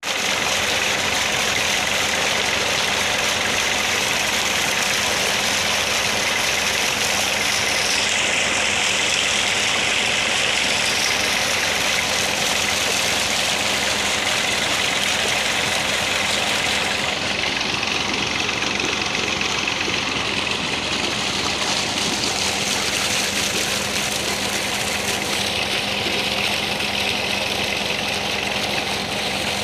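Tractor's diesel engine running steadily at constant speed, powering an irrigation water pump.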